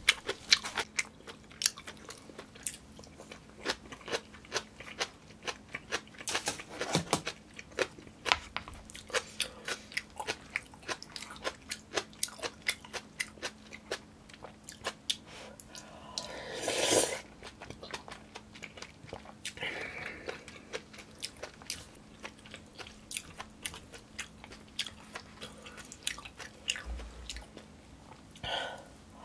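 Close-miked chewing and biting: many short, wet mouth clicks as a person eats a Korean meal of yukgaejang beef soup and side dishes, with one longer, louder sound about halfway through.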